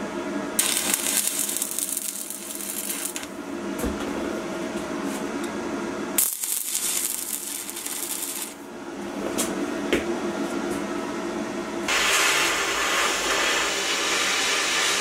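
Wire-feed welder arc welding steel: bursts of crackling and sputtering as each bead is laid, three runs with pauses between, over a steady hum.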